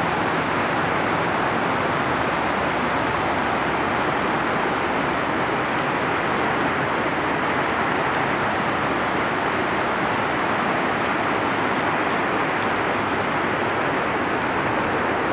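Steady, unbroken rush of swollen, fast-flowing floodwater in the Big Sandy creek, churning past a concrete bridge wall.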